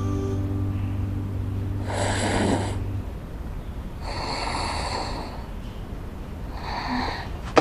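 A young woman snoring in her sleep: three rasping snores about two seconds apart, the last one shorter.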